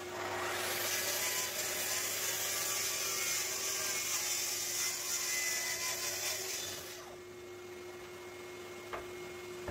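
Festool plunge-cut track saw cutting along its guide rail through 15 mm Baltic birch plywood, a steady high-pitched sawing noise. The cut ends about seven seconds in, leaving a quieter steady hum, with a single click near the end.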